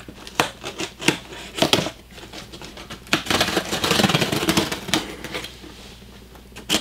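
A shipping package being opened by hand: scattered sharp clicks and scratches, with a denser stretch of rustling and scraping about three to five seconds in.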